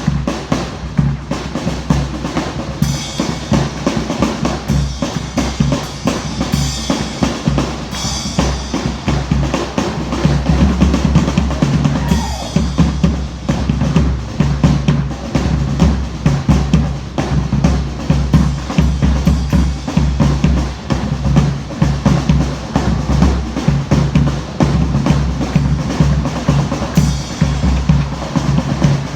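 Drums playing a busy, steady beat, with bass drum and snare strokes repeating throughout.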